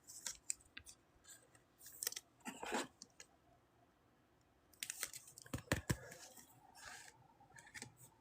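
Trading cards and pack wrappers being handled: faint, scattered rustles and clicks, with a quiet pause of about a second and a half in the middle.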